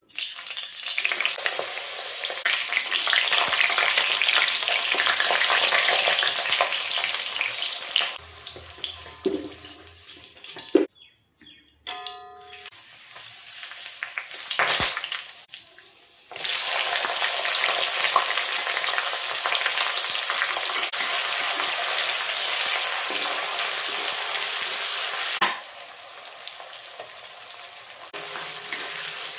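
Curry ingredients sizzling as they fry in hot oil in a pan, with stirring. The hiss comes in separate stretches that cut in and out abruptly, with a quieter gap in the middle.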